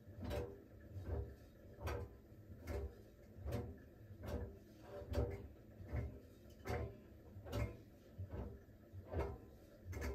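Laundry tumbling in the slowly turning drum of a Siemens WG56 iQ700 washing machine during the steaming stage of its smartFinish steam programme. A dull thump about every 0.8 s as the load drops on each turn.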